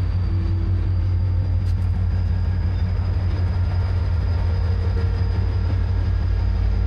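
Passenger train running past, a loud steady low rumble.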